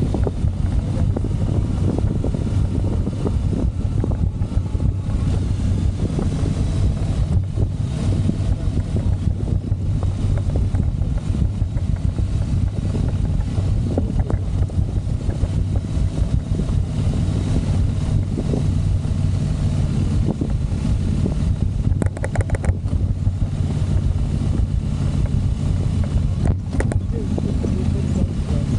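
Motorcycle engine running steadily while riding, under wind noise on the microphone. Twice in the later part there are brief rattles.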